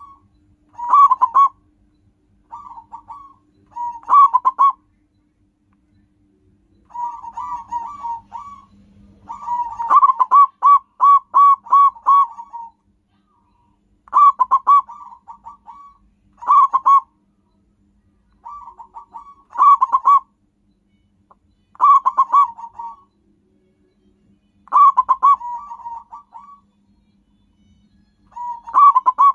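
Zebra dove (perkutut) cooing: repeated phrases of quick, rolling notes, most about a second long, coming every two to three seconds, some louder than others.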